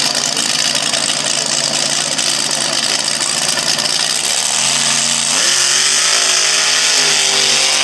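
Front-engine dragster's engine running at a steady idle, its pitch rising quickly a little past halfway and holding higher, under a constant hiss.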